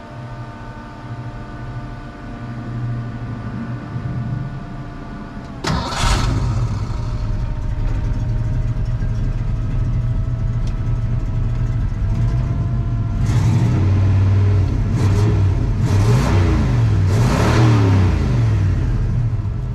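Turbocharged 302 V8 in a 1987 Ford Ranger: a steady whine over a low rumble, then the engine starts with a sudden loud burst about five and a half seconds in and runs. It is revved several times near the end.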